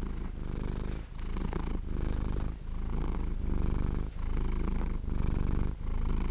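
Domestic cat purring close up, steady and low, rising and falling with its breathing with a brief dip about every second.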